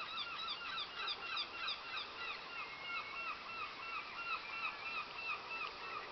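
Waterbirds calling: a rapid run of short, arched calls, about three a second, with a few overlapping callers.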